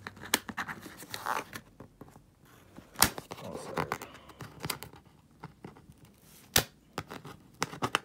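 Scissors working at the plastic packing strap around a cardboard box: sharp snipping clicks a few seconds apart, the loudest about three and six and a half seconds in, between scraping and rustling of the strap against the cardboard. The scissors struggle with the tough strap.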